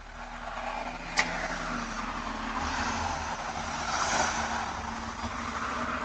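Road vehicle noise heard through a doorbell camera's microphone, rising and falling as it passes, with one sharp click about a second in.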